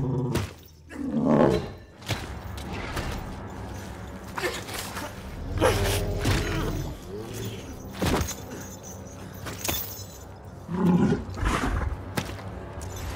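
Chewbacca growling and roaring in loud outbursts, about one second in, around six seconds and around eleven seconds, with a sharp thud in between, over a faint low drone.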